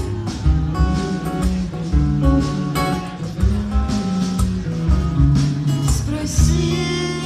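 Live rock band playing an instrumental passage: electric and acoustic guitars over steady drum beats, heard loud through a phone microphone in the crowd. A singing voice comes in near the end.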